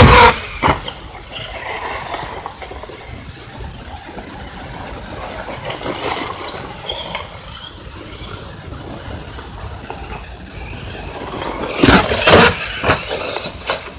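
Small radio-controlled toy car's electric motor and plastic gears running, with a loud knock at the start and a burst of clattering about twelve seconds in.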